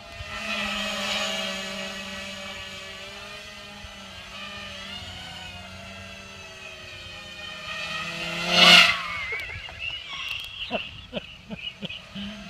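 Small quadcopter drone flying with a steady buzz that is loudest as it passes close about eight and a half seconds in, its pitch wavering as it manoeuvres, followed by a few sharp clicks near the end.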